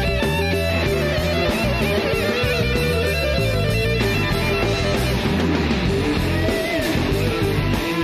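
Instrumental blues-rock: a lead electric guitar plays with string bends over a band backing of bass and drums, heard from an FM radio broadcast recorded onto cassette.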